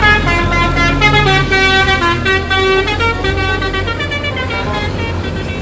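Musical 'telolet' bus horn playing a tune of quick stepped notes, with a steady low rumble underneath.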